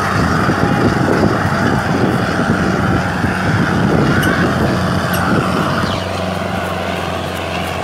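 Sonalika tractor's diesel engine running hard under heavy load, pulling a disc harrow through dry soil, with a steady low drone beneath rough noise. The black smoke shows the engine is labouring at full throttle. It eases off slightly about six seconds in.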